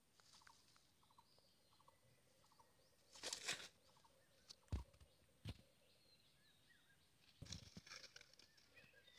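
Faint rustling of dry leaves and handling near the ground, with two sharp knocks in the middle and another rustle near the end as the man stands up. A faint ticking call repeats about twice a second in the first couple of seconds, with faint bird chirps behind.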